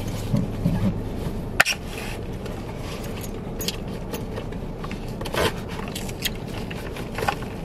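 A boba straw punched through the sealed plastic film lid of a milk tea cup, with one sharp pop about a second and a half in. Faint clicks and scrapes of the straw in the cup follow, over a low steady hum.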